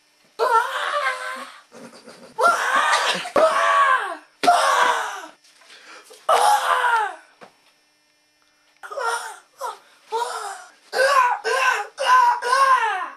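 A person's high-pitched, wordless cries and wails, about ten in a row, each about a second long and often sliding down in pitch at the end, with short gaps between.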